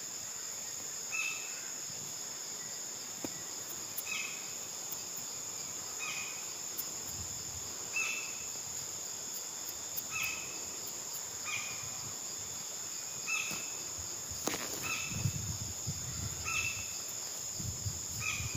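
Forest ambience: a steady, high-pitched insect chorus of crickets or cicadas, with a short chirping call repeating about every two seconds. Low rumbling noise comes in during the last few seconds.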